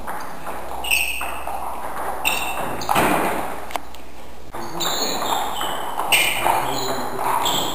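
Celluloid-type table tennis ball in a rally, clicking sharply off bats and the table top at irregular spacing, roughly a second apart.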